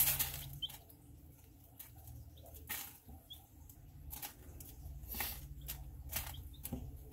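Chicks pecking and scratching through feed crumbles and hay bedding, giving scattered rustles and taps, with a few faint short peeps. A steady low hum runs underneath.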